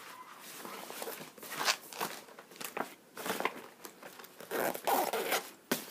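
Rustling, crinkling and scraping as a large spiral notebook is pushed into a packed fabric weekender bag among binders and papers, with a sharp tap near the end.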